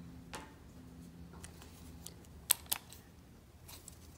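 Light clicks and taps from handling the opened plastic housing of a glow plug relay and its loose parts, with two sharp clicks close together a little past halfway.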